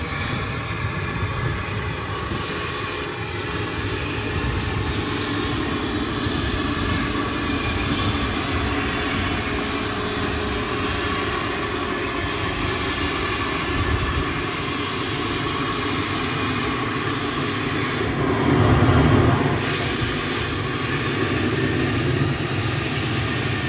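Private jet's engines running on the ground: a steady rush with a thin high whine, swelling louder briefly about three-quarters of the way through.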